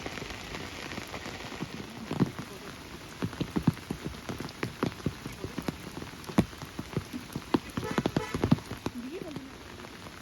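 Steady rain, with many large drops tapping sharply close by, thickest through the middle of the stretch.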